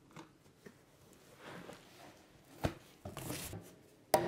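Faint scraping and small clicks of a screwdriver working at a brass carpet threshold strip, then a sharp wooden knock near the end as a chisel goes in between floorboards to lift one.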